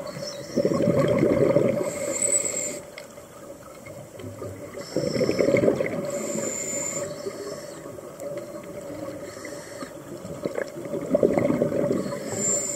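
Scuba diver breathing through a regulator underwater: three bursts of exhaled bubbles, each followed about a second later by the short hiss of an inhale, repeating every four to five seconds.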